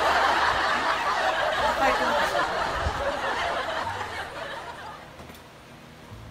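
Crowd laughter sound effect, loud at first and fading out over about five seconds.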